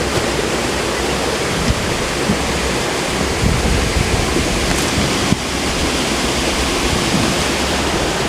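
Creek waterfall pouring into a pool: a steady, loud rush of falling water.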